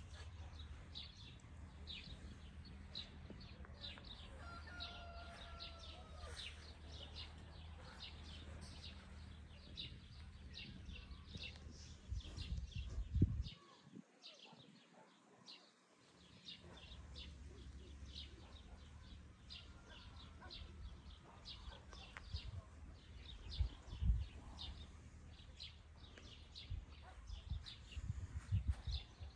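Small songbirds chirping in quick, repeated short notes throughout, with one longer drawn-out call that rises and falls about five seconds in. Underneath is a steady low rumble with a few soft thumps.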